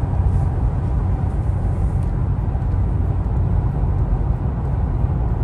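Steady road and tyre rumble heard inside a car's cabin while it cruises at highway speed.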